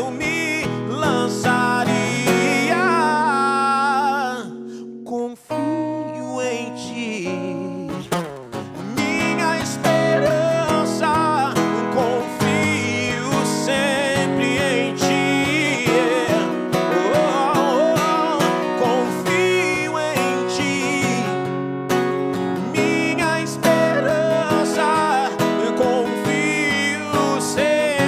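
Slow devotional music led by a strummed acoustic guitar, with a wavering melody line above it.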